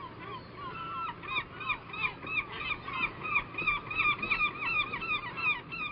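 A flock of birds calling over and over, short rising-and-falling calls several a second that overlap one another.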